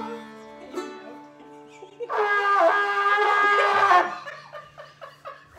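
Trumpet playing one loud held note for about two seconds, starting about two seconds in, over quieter sustained notes from other instruments tuning up.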